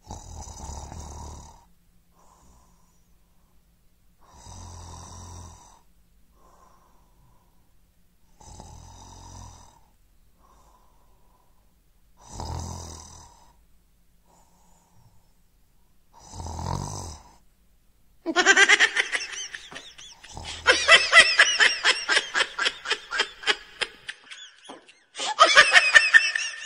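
A person snoring: five long snores about four seconds apart, with near silence between them. From about eighteen seconds in come loud bursts of laughter, which are the loudest part.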